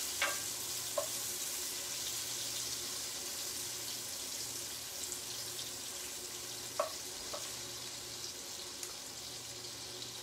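Mushrooms sizzling in oil in a frying pan, a steady hiss that eases slightly, with a few knocks of a wooden spurtle against the pan as they are stirred near the start and again about seven seconds in.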